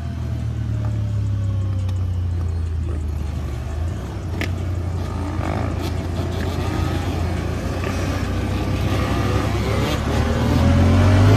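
Vehicle engines running steadily, with one engine's pitch falling early on and an engine revving up, rising and getting louder, near the end.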